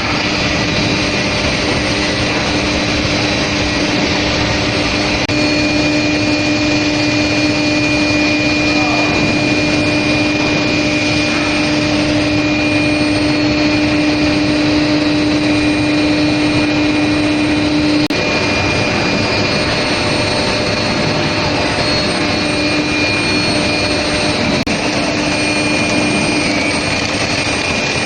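Steel plate induction hardening and quenching line running: a loud, steady machine noise with a steady hum and a high whine over it. The hum grows stronger about five seconds in and drops back about eighteen seconds in.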